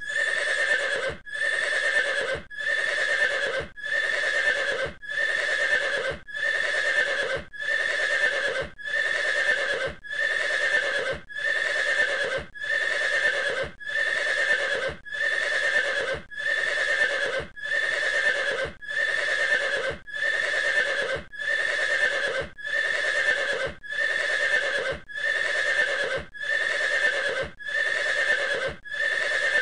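A short horse call repeated as a loop: the same sound, a little under a second long, comes back evenly a little more than once a second, with a click at each join.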